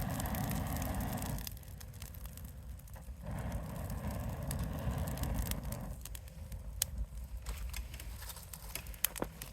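Wood campfire crackling, with scattered sharp pops that come more often near the end, over two stretches of a louder low rushing noise in the first second and a half and again from about three to six seconds in.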